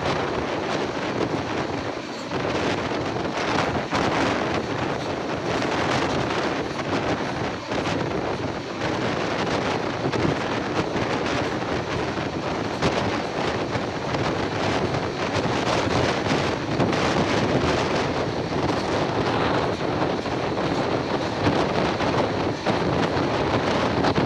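Wind buffeting the microphone over the steady running noise of an express passenger train at speed, heard from an open coach door.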